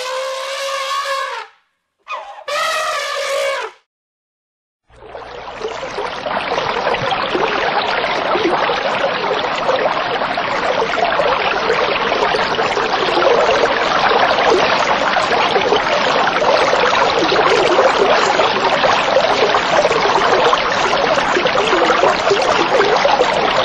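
An elephant trumpets twice, two short pitched calls in the first few seconds. A steady rush of bubbling, splashing water starts about five seconds in and continues unchanged.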